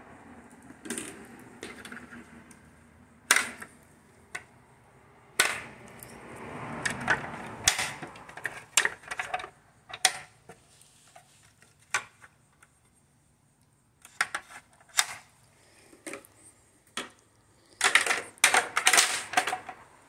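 Hard plastic parts of an Aiper Seagull Plus robotic pool cleaner clicking and knocking as its filter basket and black housing are handled. The knocks come irregularly, with a quick burst of clatter near the end.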